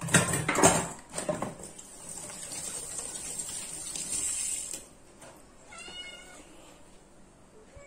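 A domestic cat meows once, briefly, about six seconds in. Before that come a few sharp knocks and handling sounds, then a few seconds of steady hissing noise.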